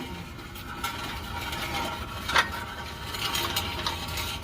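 Light metallic clinks and scrapes of hand tools working on exhaust bolts, with one sharper clink about two and a half seconds in.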